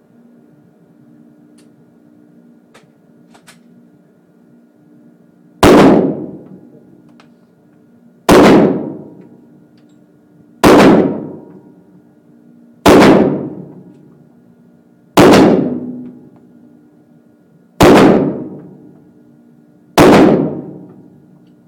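Seven shots from a 9mm Glock pistol, fired slowly and evenly about two to two and a half seconds apart, each ringing off in the indoor range's echo. A few faint clicks come before the first shot.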